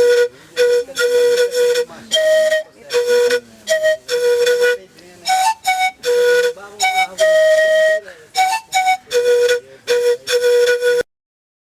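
A melody of short, separate notes on a flute-like wind instrument, hopping between a few pitches at about two or three notes a second. It cuts off suddenly near the end.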